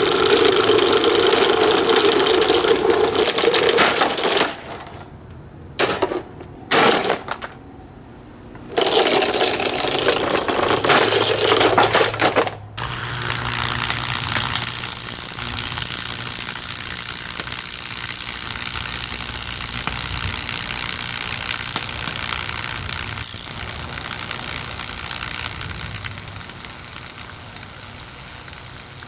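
SMC table fan's small electric motor running hard with loud rattling and grinding, cut off twice. It then settles into a steadier humming run that slowly dies down near the end.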